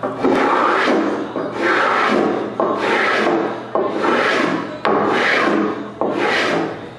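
Spokeshave cutting along the edge of a glued-on cherry corner trim strip, trimming its overhang flush with the panel: a rhythm of rasping shaving strokes, about one a second, each starting sharply and tailing off.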